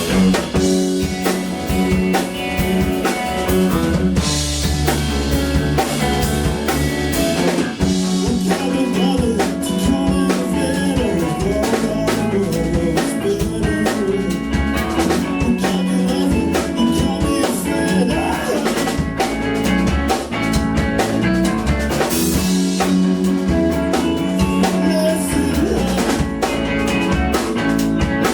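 Live band playing rock music: a drum kit keeping a steady beat under guitar and bass.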